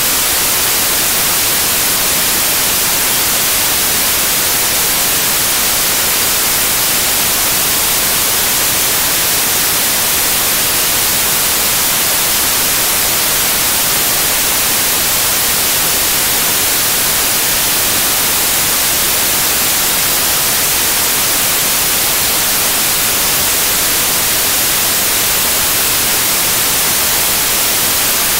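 Steady, loud hiss of analog television static, the sound of a TV set receiving no signal.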